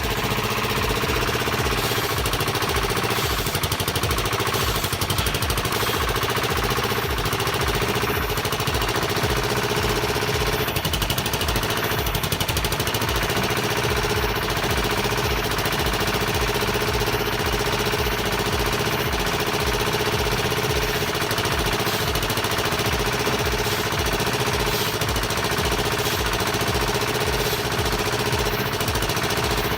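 A material handler running a firewood-processing attachment: a steady mechanical hum with a fast, even pulsing underneath.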